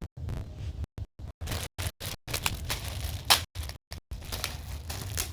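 Plastic parcel wrapping being cut and torn open, with irregular crinkling and tearing, the loudest rip about three seconds in.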